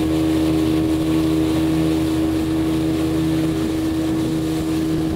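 Motorboat's engine running steadily at speed: a constant drone with a strong steady hum, over the rush of water and wind.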